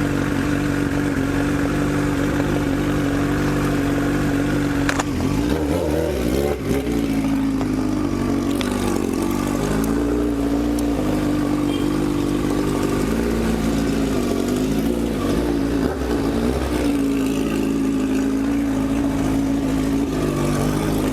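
Honda CB1000R's inline-four engine running under way, holding a steady pitch, then rising and falling with the throttle for several seconds through the middle before settling steady again.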